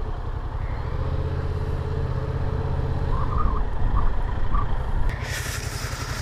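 Yamaha MT-07's parallel-twin engine running steadily at low revs as the bike rolls slowly. About five seconds in, a broad rushing hiss joins it.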